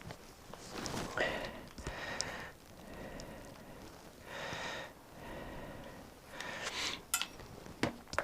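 A person breathing audibly through the nose in several separate breaths, with a few small sharp clicks near the end.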